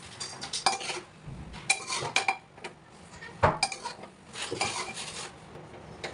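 Metal spoon stirring and scraping inside a hammered aluminium pot, clinking irregularly against its sides and rim, with one sharper clink about three and a half seconds in.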